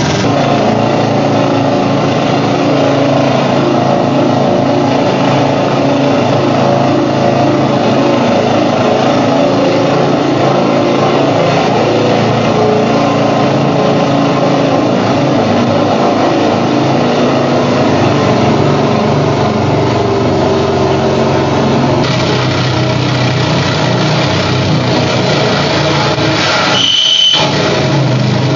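Amplified calculators pushed into spinning electric fans, giving a loud, steady, grinding mechanical noise drone with many held tones. Near the end the lower noise drops out for a moment and a brief high tone cuts through.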